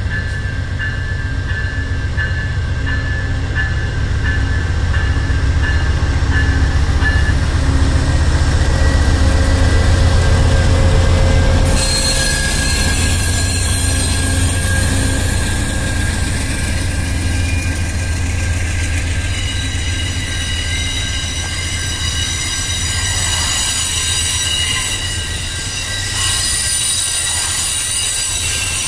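Amtrak GE P42DC diesel locomotive passing close by with its engine running low and heavy. After about twelve seconds the passenger cars roll past and the brakes and wheels squeal as the train slows for a station stop. A crossing bell rings about twice a second for the first several seconds.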